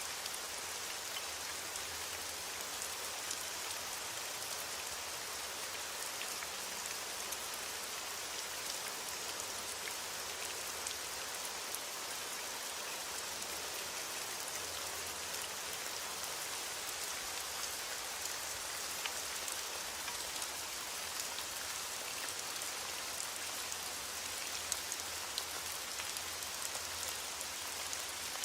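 Steady rain falling, a constant hiss with many small drops ticking through it.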